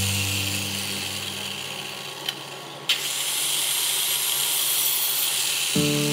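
Power tool working wood, a steady hiss with a sharp click about two seconds in. Background music comes in near the end.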